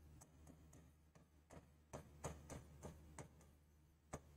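Near silence broken by faint, irregular clicks of a pen tapping the writing board, about seven of them from a second and a half in, as a word is written out.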